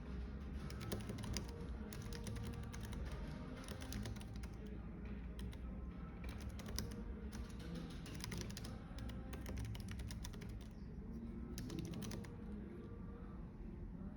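Typing on a computer keyboard in bursts of quick keystrokes with brief pauses, over a steady low cafe background and soft music.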